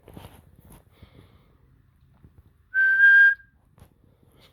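A person whistling one short, breathy note at a steady pitch, lasting about half a second, about three seconds in.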